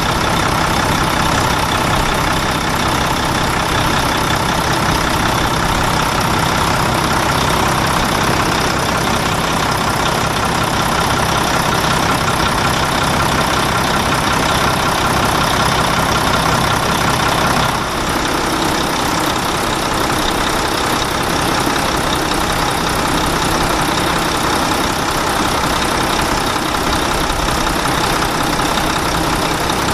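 Truck engine running steadily, at an idle-like even pace, with a brief dip and a slight change in its note about two-thirds of the way through.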